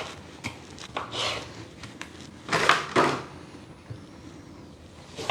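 Food-preparation sounds from cutting cherry tomatoes in half and adding them to a salad: a few short knocks and scrapes, the loudest pair about two and a half to three seconds in.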